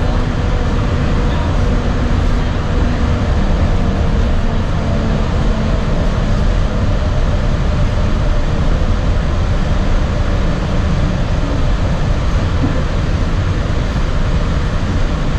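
Walt Disney World monorail running at speed, heard from inside the car: a steady rumble from its rubber tyres on the concrete beam and its drive, with a faint whine in the first few seconds.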